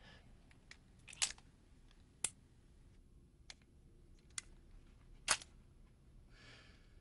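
Sharp metallic clicks of a stainless revolver's action as it is handled: about six separate clicks a second or so apart, the loudest about five seconds in. A soft rustle follows near the end.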